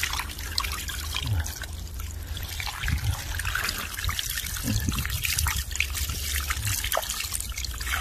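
Water trickling and dripping with small splashes as a mesh fish trap is handled in a shallow stream, over a steady low rumble.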